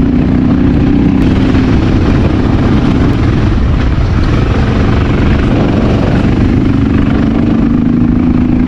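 Honda XR650L dual-sport motorcycle's air-cooled single-cylinder engine running under load on a steep dirt climb, its note wavering in the middle, with heavy wind rushing over the microphone.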